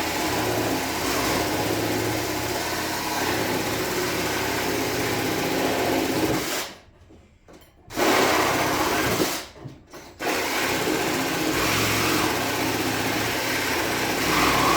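Cordless Ridgid power tool running hard on a rusted fastener, cutting it off. It stops twice briefly in the middle and starts again.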